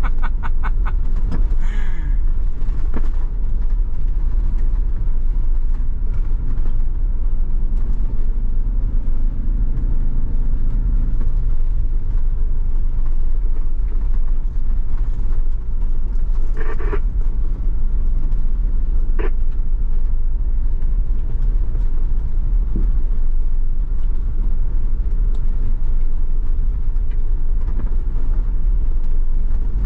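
Old Ford Bronco driving briskly along a dirt forest road: a steady, heavy low rumble of engine and tyres, with a couple of short sharp rattles past the middle.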